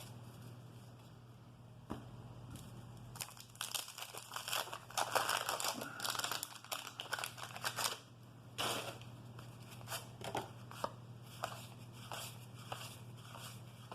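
Wax-paper baseball card pack crinkling and tearing as it is opened, followed by a run of separate sharp clicks as the stiff cardboard cards are handled and flipped through.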